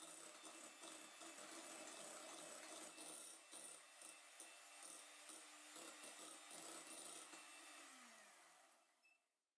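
Faint electric hand mixer whipping meringue to stiff peaks in a glass bowl, its beaters churning. Near the end the motor winds down and stops.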